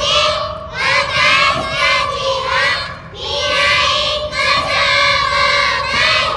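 A group of young children's voices in unison, amplified through microphones, calling out in short phrases on steady, held pitches with brief pauses between them.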